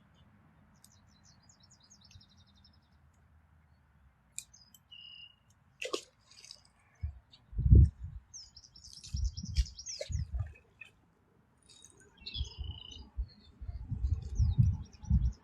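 Small birds chirping in short, repeated high calls. From about seven seconds in, loud low rumbling bumps on the microphone come and go and drown out the birdsong.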